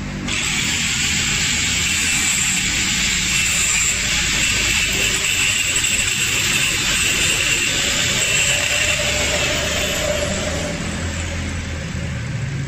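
Handheld power grinder running steadily against the cracked aluminium engine case, cleaning out the break before welding; it starts at the very beginning and eases off near the end.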